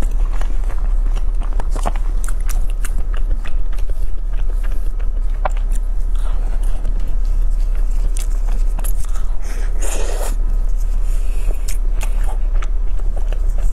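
Close-miked biting and chewing of an egg tart: many small crisp clicks and crackles from the crust, with a longer crackle about ten seconds in, over a steady low hum.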